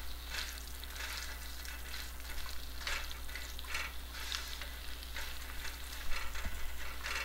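Chopped okra and sliced onion sizzling in oil in a non-stick pan while a silicone spatula stirs them, a brighter scrape of the spatula every second or so over the steady sizzle.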